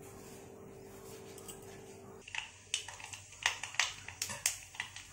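Mustard seeds frying in hot mustard oil in a steel kadai. A faint steady hum at first, then about two seconds in the seeds start popping and spluttering, with sharp irregular crackles several times a second.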